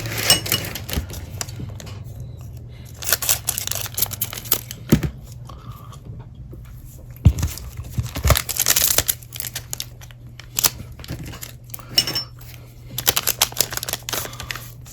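Plastic wrapper of a trading card pack being torn open and crinkled by hand, in several irregular bursts of crackling, over a low steady hum.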